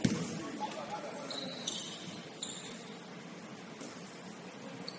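Gym ambience during a basketball game: a single thud right at the start, then a few short high sneaker squeaks on the court in the middle, over a steady murmur of the hall.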